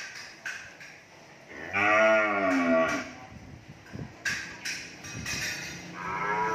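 Cattle mooing: one long moo about two seconds in that rises and falls in pitch, and another starting near the end. A few light knocks fall between the calls.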